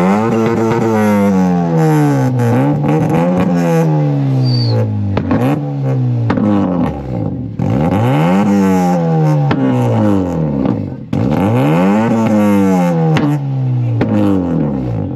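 Modified Honda Civic sedan's engine free-revving through its aftermarket exhaust while parked. The note climbs and falls back over and over, about every two seconds.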